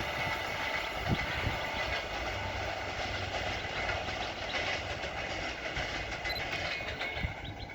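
A passing train rumbling steadily, its wheels clattering over the rail joints, beginning to fade near the end.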